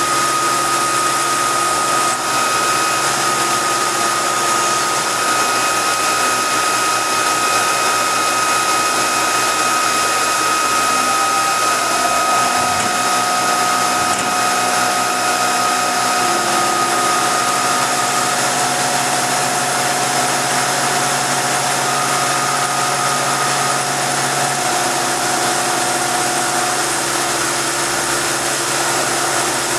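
Milling machine's end mill cutting a billet Yamaha snowmobile clutch helix under flood coolant: a steady machining whir and spray hiss with high whining cutting tones that shift in pitch partway through the cut.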